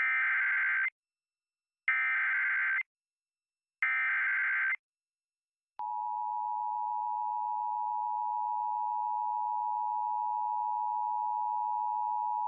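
Emergency Alert System SAME header: three identical bursts of warbling data tones, each just under a second long with about a second between them. About six seconds in, the steady two-tone EAS attention signal starts and holds.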